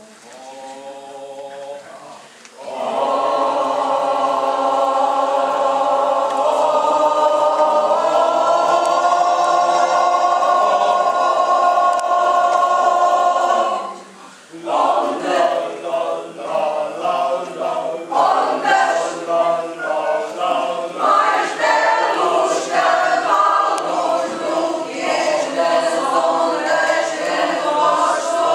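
Choir singing a cappella. A soft opening gives way to long held chords, then a brief break about fourteen seconds in, after which the singing moves in shorter, rhythmic notes.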